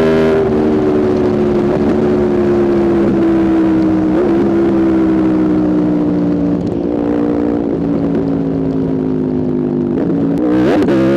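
2021 Aprilia RSV4's V4 engine running through a Spark exhaust while riding. The pitch steps down just after the start, then falls slowly and steadily as the bike slows, with a quick throttle blip near the end before the revs climb again.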